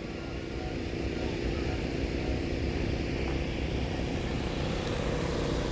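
Steady drone of a running engine, a low rumble with a constant hum, holding steady with no change in speed.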